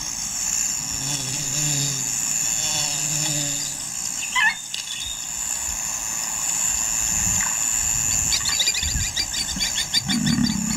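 Bush ambience: a steady high insect drone, with a short bird call about halfway through. Fast chirping and low rumbles follow in the last few seconds.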